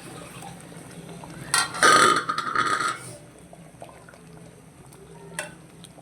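Metal cooking pot and spoon clattering and scraping together, one loud stretch of about a second and a half with a metallic ring, then a single click near the end.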